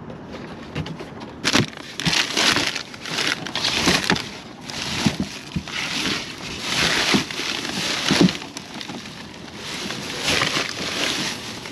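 Gloved hands rummaging in a plastic organics cart, rustling a plastic bag and crunching leafy vegetable scraps in a run of irregular bursts, with a sharp knock about a second and a half in.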